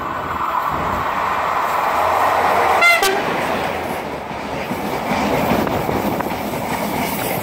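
RENFE passenger train passing close along a station platform, a steady rush of wheels on rail that builds as it draws level, with one short horn toot about three seconds in.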